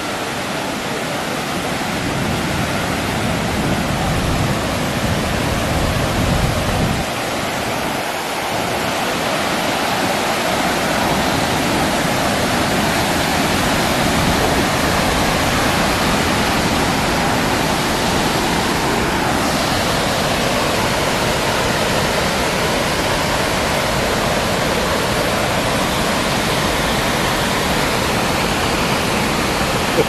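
River water pouring over a curved concrete dam spillway and churning in the white water below: a steady rush, growing louder over the first several seconds and then holding even.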